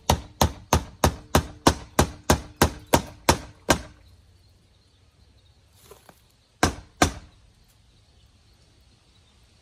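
Hammer driving nails into wood, steady blows about three a second that stop about four seconds in. A few seconds later come two more hard blows close together.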